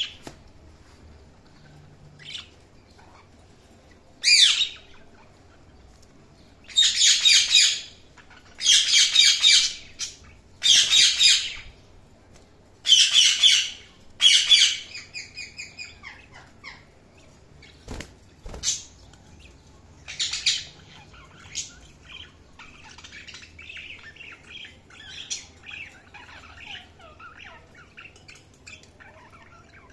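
Budgerigars calling: a run of loud, harsh squawks about a second long each, coming every couple of seconds, then softer chirps and quick warbling chatter.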